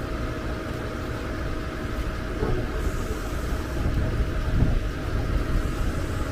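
Amtrak Saluki passenger train's bi-level cars rolling past: a steady low rumble of wheels on rail with a faint steady hum.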